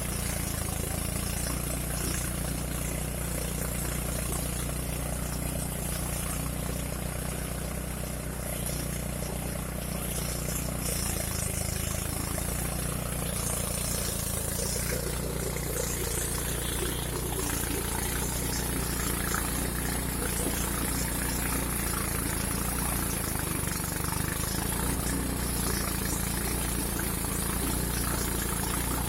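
Engine-driven rice threshing machine running steadily, its motor humming evenly with a rushing hiss of threshing on top.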